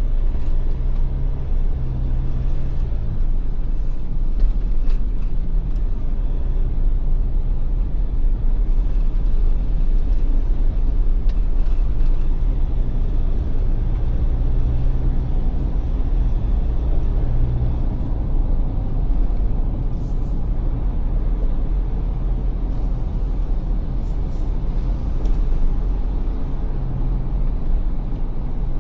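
Ford Everest SUV driving, heard from inside the cabin: a steady low rumble of engine and road noise whose engine note shifts slightly now and then, with a few faint ticks.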